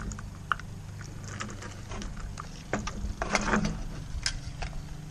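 Scattered clicks and knocks of hands handling a molded plastic magazine loader, rifle cartridges and an AR magazine, with a busier run of clatter about three seconds in.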